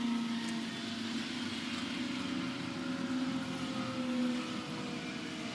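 Gas radiant heater burning just after lighting, its element still warming up: a steady hiss of burning gas with a low hum and a higher tone that slowly falls in pitch.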